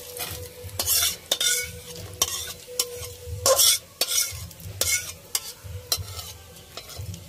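Metal spatula scraping and knocking against an aluminium kadai, about twice a second, as fried whole spices are scooped out into a steel bowl. The hot oil left in the pan sizzles lightly.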